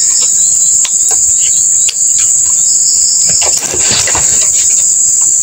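A steady high-pitched chorus of insects, the loudest sound throughout, over a few light clicks and scrapes of a screwdriver prying at the plastic housing of a small chainsaw.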